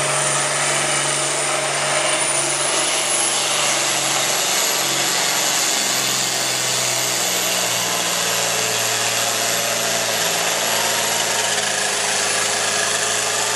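Turbocharged International Harvester diesel tractor engine running hard under full load while pulling a weight-transfer sled, with a steady high turbo whistle that rises slightly about three seconds in.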